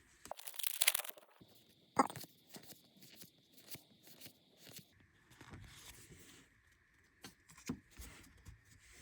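Trading cards being handled and flipped through: a short papery rustle about half a second in, then a sharp tap and a run of light clicks about two a second as the cards are moved one by one, with a few more taps near the end.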